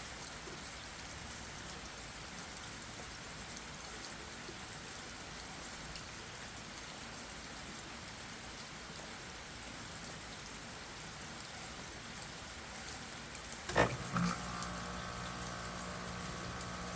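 Steady rain falling on leaves and ground. About fourteen seconds in, two short loud sounds break in, one right after the other, and a steady humming tone starts and keeps on.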